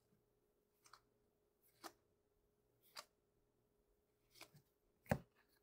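Football trading cards being flipped through one at a time: five faint, soft flicks about once a second, the last one, near the end, a little louder.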